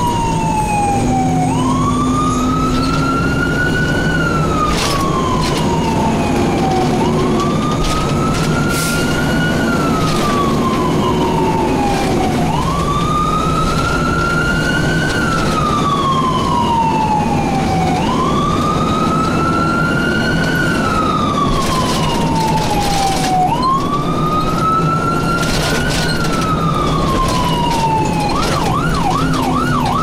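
Fire engine siren heard from inside the cab while the truck runs to a call. It wails in repeated cycles, rising quickly and falling slowly about every five and a half seconds, then switches to a fast yelp near the end, over the truck's steady engine drone.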